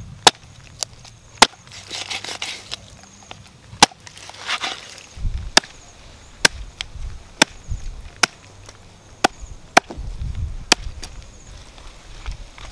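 Large knife chopping a raw chicken into pieces on a round wooden chopping board: a dozen or so sharp chops at an uneven pace.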